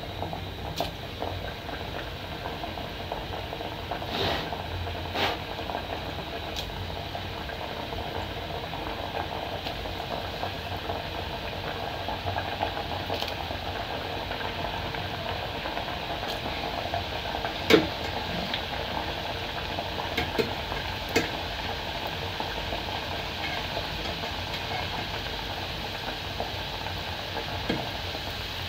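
Mandazi dough pieces deep-frying in hot oil in a metal pot: a steady sizzle and bubbling. Now and then a metal slotted spoon clicks against the pot, loudest about two-thirds of the way through.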